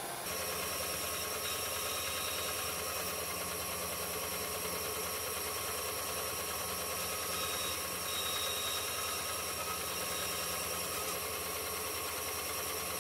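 Benchtop band saw running steadily, its motor giving a low hum under a high whine, as a small piece of ash wood is fed through the blade.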